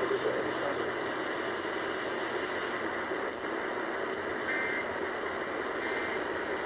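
Steady hiss of radio static from a receiver between broadcasts, with three faint short beeps in the second half.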